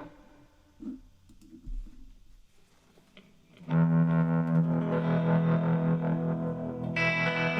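Distorted electric guitar played through a TC Electronic Flashback X4 delay pedal. After a near-quiet pause with a few faint clicks, a chord rings out loud about halfway in and is held. A brighter chord is struck near the end.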